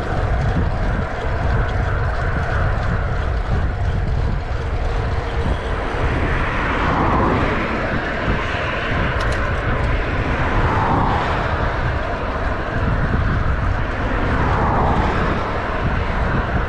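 Steady wind rumble buffeting an action camera's microphone while cycling, with three brief swells of higher hiss.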